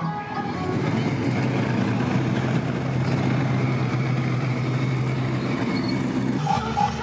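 A classic American car's engine running steadily as the car cruises past, with road noise. Music comes back in near the end.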